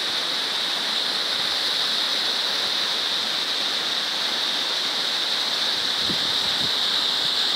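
Small mountain waterfall cascading down a rocky gully: a steady, even rush of falling and splashing water.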